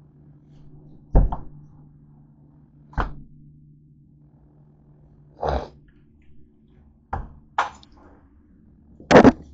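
Dull thunks and knocks, six or so spaced a second or two apart, the last near the end the loudest, over a low steady hum.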